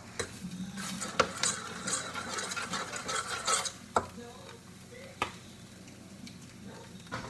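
Eggs being stirred and scraped around a pan with a cooking utensil for about three and a half seconds, with a sharp tap in the middle. Then three separate sharp taps of the utensil on the pan.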